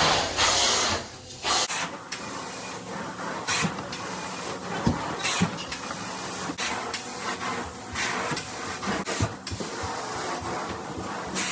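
Carpet-cleaning equipment spraying in short hissing bursts, the longest at the start, with scattered clicks and knocks. A low machine hum stops about two seconds in.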